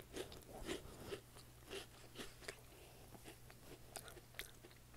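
A person chewing and crunching a crunchy snack close to the microphone: irregular small crunches, denser in the first couple of seconds and sparser after.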